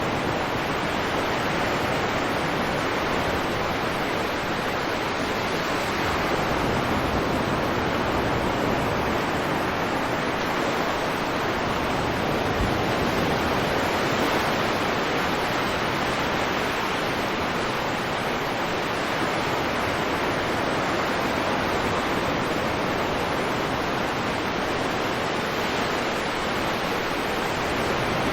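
Stormy sea ambience: a steady, dense wash of rough surf and wind, with no single breaking wave standing out and only slight swells in level.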